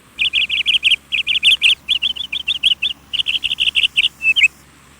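A bird chirping in a long run of quick, high notes, several a second, in short groups, stopping shortly before the end.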